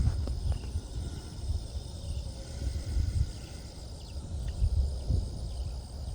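Wind buffeting the microphone in uneven gusts, with a steady high-pitched insect trill underneath.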